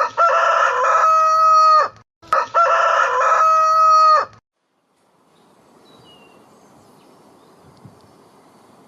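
Two loud animal calls in a row, each about two seconds long at a steady pitch and cutting off abruptly, followed after a short gap by a faint hiss of background noise.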